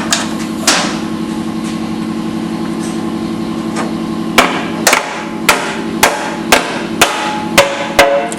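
Hammer tapping on metal over a steady low machine hum: a single strike, then from about four seconds in a run of about eight taps, roughly two a second, as the transmission's oil pan with its cork gasket is worked loose.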